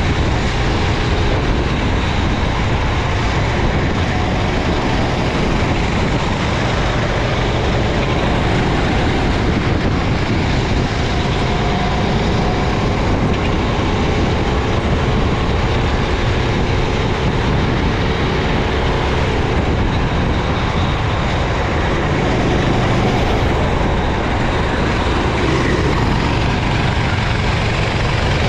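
Racing kart engine running at speed, heard from on board, with faint rises and falls in pitch under a steady, dense rushing noise.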